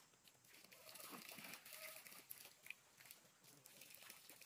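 Near silence: faint outdoor background with a few soft crackles and ticks.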